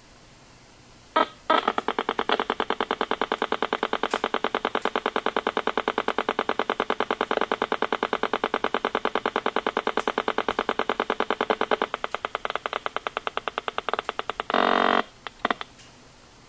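RF meter's audio output sounding Wi-Fi signals as a rapid, even train of clicks, about ten a second: the regular beacon pulses of a wireless router. Near the end it turns into a solid buzz for about half a second, a burst of data traffic, followed by a few stray clicks.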